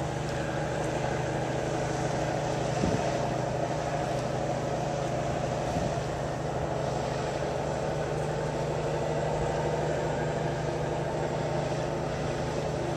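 Steady low mechanical hum of a cruise ship under way, with an even rushing of wind and water over it.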